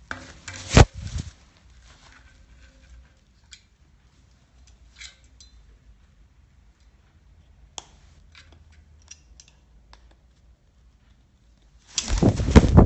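Blue-and-gold macaw brushing and bumping against the microphone at the start, with one sharp knock. A few faint scattered clicks follow, then a loud rush of wing flapping about a second long near the end.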